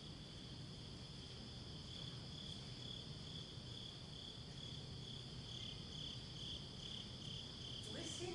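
Crickets chirping as a stage sound effect: a steady high trill that pulses about two to three times a second, over a low hum in the hall.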